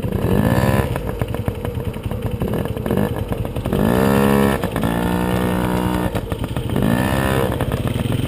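Small kids' dirt bike engine ridden across grass, its throttle opened and eased about four times, each time rising in pitch, with a steadier run in the middle.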